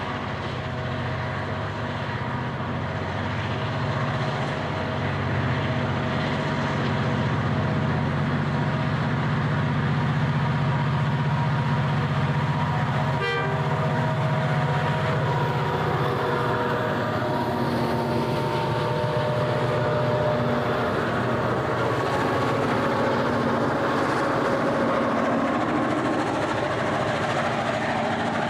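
EMD GM and ALF class diesel-electric locomotives working hard under load, hauling a loaded grain train upgrade. The heavy engine rumble grows louder over the first several seconds as they approach.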